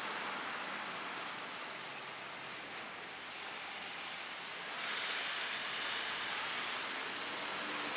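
Steady hiss of road traffic, growing louder about five seconds in.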